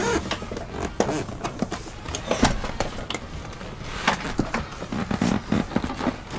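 Irregular knocks, bumps and scuffs as a heavy second-row bench seat of a Toyota Land Cruiser 100 series is shifted, tipped and set down on the carpeted floor inside the vehicle.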